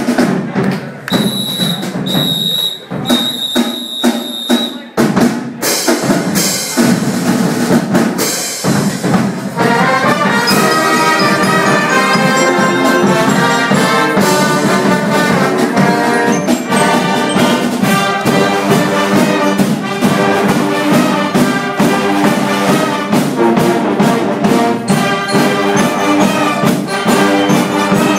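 A brass and percussion band playing. It opens with drums and a high steady tone sounding in short repeated blasts, then the full band comes in with held brass chords about five seconds in and plays on over a steady beat.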